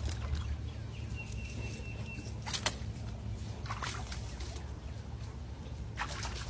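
Small stream trickling over rocks, with a few short splashy clicks, two of them close together about two and a half seconds in, as a tiger's paws step in the shallow water.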